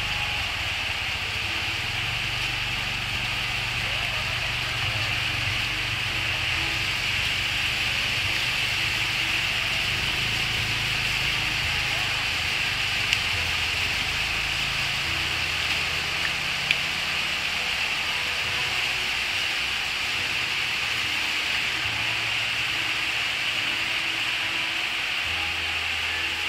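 Clay brick-making extruder machine running steadily, a continuous mechanical hiss over a low hum. The low hum eases about halfway through, and there are two faint clicks in the middle.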